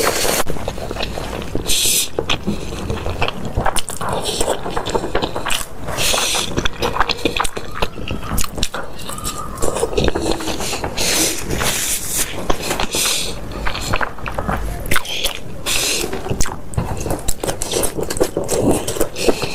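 Close-miked eating of noodles and spicy broth: repeated short slurps, with chewing and utensils clicking and scraping against the bowl.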